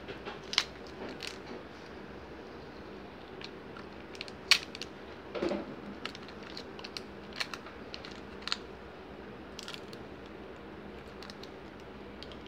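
Small plastic clicks and taps from fingers working the frame of an opened smartphone, with a brief crinkle of clear plastic film, over a steady faint hum. The sharpest click comes about four and a half seconds in.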